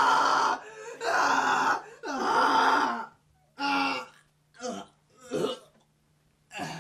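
A person's voice making loud, strained non-speech sounds: three long ones in the first three seconds, then shorter, weaker ones that trail off.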